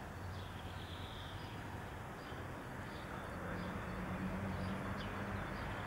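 Buell XB12R Firebolt's air-cooled V-twin engine idling steadily, its low pulse shifting slightly in pitch about three seconds in, with faint bird chirps above it.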